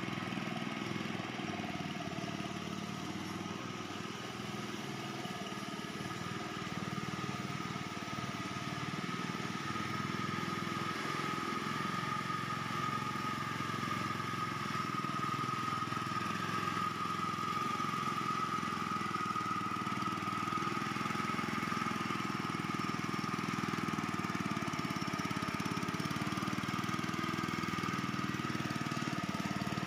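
Small engine of a BRRI hydrotiller running steadily under load as it tills a flooded, muddy paddy field, with a steady high whine that is strongest midway.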